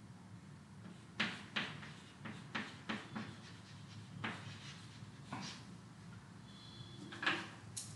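Chalk writing on a chalkboard: a run of short taps and scrapes as a word is written, followed by one more knock near the end, over a faint steady hum.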